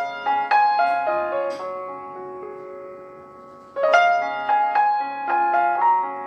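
Background piano music: a melody of struck notes, with one note left to die away for about two seconds before the playing picks up again.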